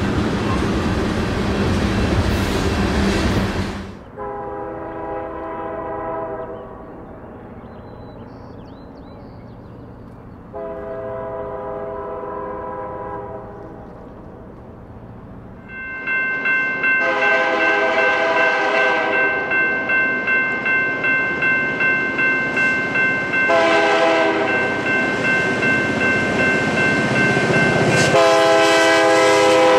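Freight train running past close by, then a diesel locomotive's multi-chime air horn sounding long and short blasts for grade crossings. Over the second half a crossing bell rings steadily at about two strokes a second, and the last long blast drops in pitch as the locomotive passes.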